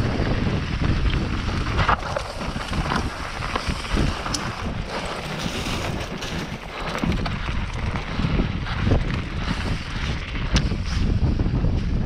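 Wind buffeting the microphone of a camera on a mountain bike rider, over the rumble of the bike's tyres on a dirt trail, with scattered knocks and rattles as the bike goes over bumps.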